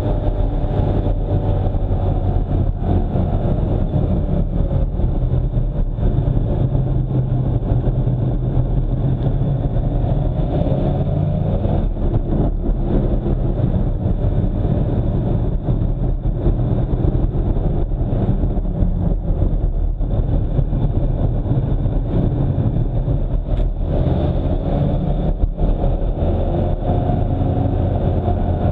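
A car driving along a road: steady engine and road noise, the engine's pitch rising and falling a little.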